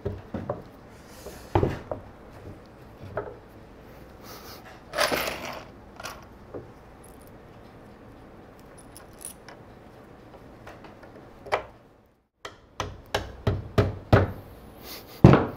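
Wooden chair parts knocking and scraping as the armrest board is set in place, then a rubber mallet tapping the wooden armrest into position: a quick run of blows in the last few seconds, the final one the loudest.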